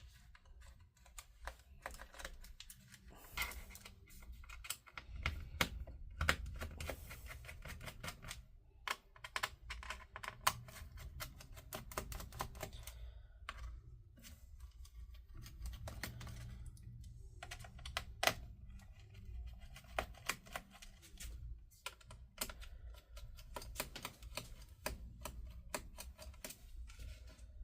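Irregular small clicks and taps of a screwdriver working the bottom-panel screws of an HP EliteBook 840 G6 laptop, with the laptop's plastic and metal case being handled.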